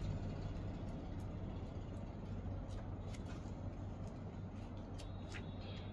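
Faint rustles and a few light clicks from handling a deck of oracle cards, over a steady low hum.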